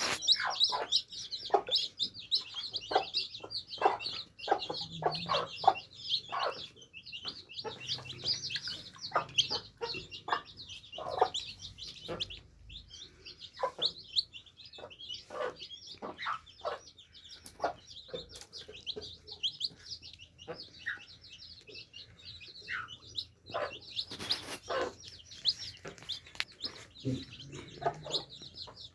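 Many baby chicks peeping continuously in high, rapid cheeps, mixed with sharp tapping clicks. The cheeping thins out in the middle and gets busier again near the end.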